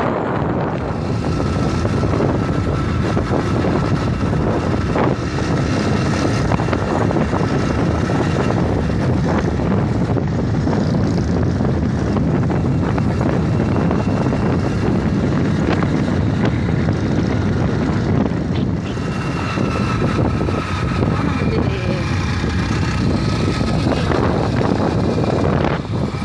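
Small motorcycle running steadily under way, with wind rushing over the microphone.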